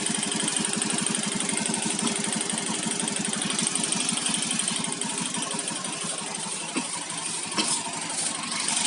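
Automatic scooter engine running steadily with a knocking 'kotok' noise. The noise sounds like worn CVT rollers but comes from a loose spark plug cap.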